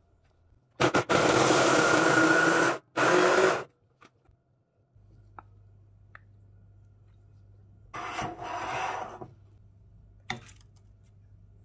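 Small electric chopper grinding Oreo cookies and melted butter into crumbs: two loud pulses of the motor about a second in, then a shorter, quieter run around eight seconds in. A single sharp tap near the end.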